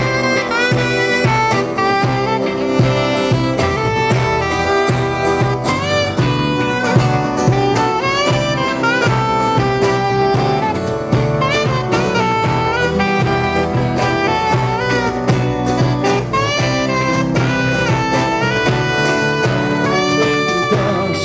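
Live band playing the instrumental introduction of a song: a lead melody with bent notes over bass and drums.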